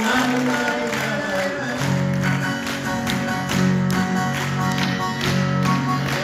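Live acoustic guitar band music: guitars strummed in a steady rhythm under sustained chords, with no singing.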